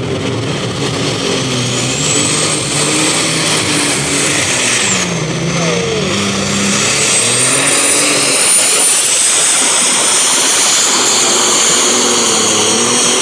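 Super stock pulling tractor's turbocharged engine running hard under full load as it pulls the sled. A high turbo whistle climbs, dips about five seconds in, and climbs again over the engine.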